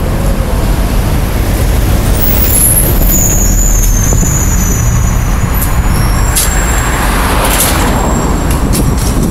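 Road traffic with heavy vehicles: a steady low rumble, with a thin high squeal from about two and a half to five seconds in and a few short sharp sounds near the end.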